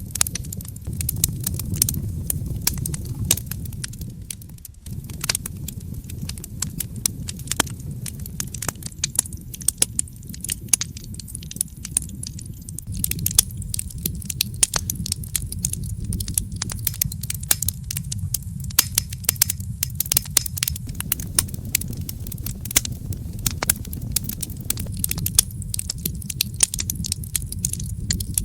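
Wood fire burning in a fireplace: constant crackling and popping over a low rumble of flames, with a brief drop in the sound about five seconds in.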